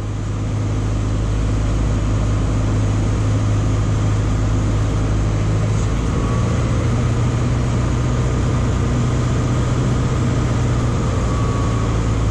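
Piper PA-38 Tomahawk's four-cylinder Lycoming engine and propeller droning steadily as heard inside the cockpit, with airflow noise, on final approach. The sound fades up over the first second or two, then holds level.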